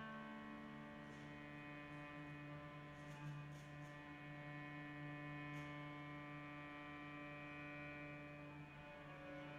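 Very soft sustained cello tone amplified through live electronics: a low held pitch with a shimmer of higher partials that slowly fade and shift, heard as a quiet drone. A few faint clicks come about three seconds in and again a little later.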